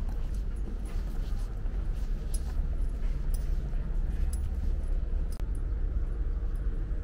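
Footsteps on a wooden boardwalk, sharp clicks about once a second, over a steady low rumble.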